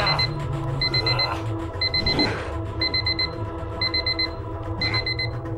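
Alarm clock beeping in rapid groups of four short high beeps, about one group a second. Underneath runs a steady low drone, with a few brief sweeping swells.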